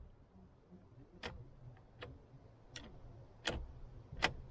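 Toyota Hiace's steering-column control stalk clicking: five light, sharp clicks about three-quarters of a second apart, the 'classic Toyota click' of its controls.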